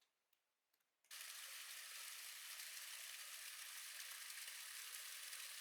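Near silence with a few faint clicks, then about a second in a steady, even hiss starts abruptly and holds, with no low rumble.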